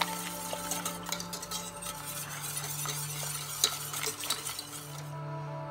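Thick barbecue sauce bubbling and popping as it simmers in a stainless steel saucepan, with a spoon stirring and clinking against the pan at first. Under it runs the steady hum of an induction hob, dropping slightly in pitch about two seconds in.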